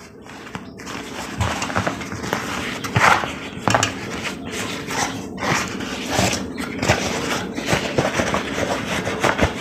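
Plastic packaging rustling and crinkling irregularly as a pair of welding gloves is unwrapped and handled.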